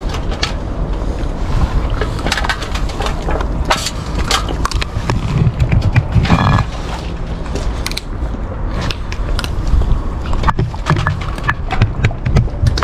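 A large dog eating meat scraps from a stainless steel bowl on concrete: irregular clicks and knocks of teeth and muzzle against the metal bowl, and the bowl scraping across the concrete as it is pushed along.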